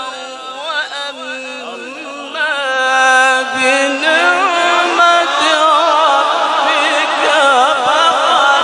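A man chanting Quran recitation through a microphone and loudspeakers, in long melodic lines bending up and down in pitch. It gets louder about two seconds in, and from about four seconds in more voices overlap with it.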